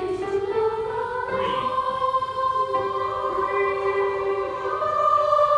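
Children's choir singing long held notes in two or more parts, swelling louder near the end.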